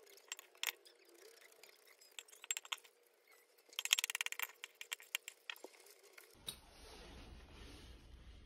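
Metal spoon clinking and scraping against a ceramic bowl: a few scattered clinks, then a quick run of rapid scrapes about four seconds in as the last of the food is scooped up. Just after six seconds it cuts to a steady low background hum.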